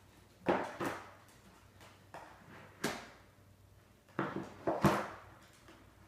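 Small dog in a plastic cone collar stepping down wooden stairs, its paws and the cone's rim knocking on the treads: about six irregular knocks, with a cluster of three near the end.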